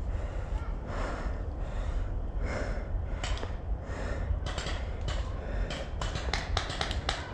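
Heavy breathing, a hiss about every second or less, over a steady low rumble, with several sharp clicks near the end.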